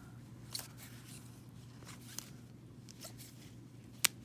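Baseball cards in clear plastic sleeves being handled and flipped through: soft sliding with a few sharp clicks of card edges, the sharpest about four seconds in, over a steady low hum.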